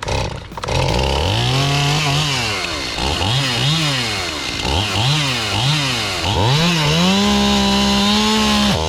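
Two-stroke chainsaw engine revved up and down about once a second, then held at high revs for about two seconds before it cuts off suddenly.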